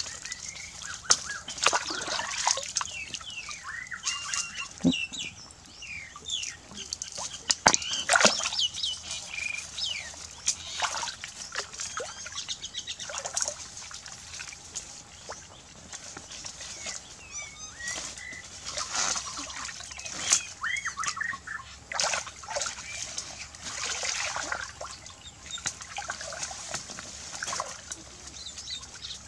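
Shallow muddy water splashing and sloshing as someone wades and gropes in it by hand, with irregular splashes and drips.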